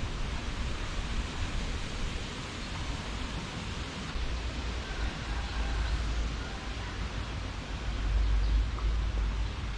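Outdoor river ambience: a steady hiss with wind buffeting the microphone as a low rumble that swells about eight seconds in.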